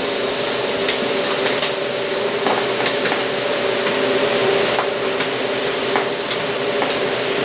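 Greenhouse fogging nozzles hissing steadily as they spray a fine fog of water, over a faint steady hum, with scattered light ticks.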